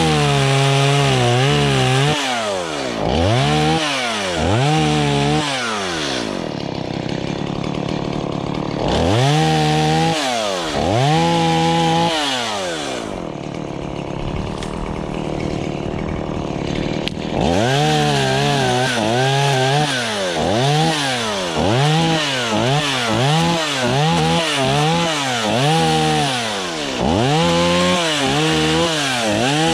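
Two-stroke chainsaw engine revving up and falling back to idle again and again. It idles for a few seconds in the middle, then revs in quick succession, about once a second, near the end.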